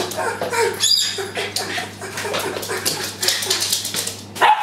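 Japanese Spitz whining and whimpering in rapid short high squeaks, over-excited at its owner's homecoming, with scattered clicks through it and a louder sharp yelp near the end.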